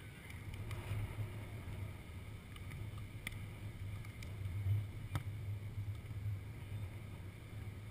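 Wind buffeting the microphone, a steady low rumble, with a few sharp smacks of a volleyball being hit, the clearest a little past the middle.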